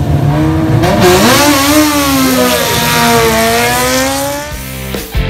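A sprint motorcycle held at revs on the start line, then launching and accelerating away, its engine pitch rising and falling through the run before it fades near the end.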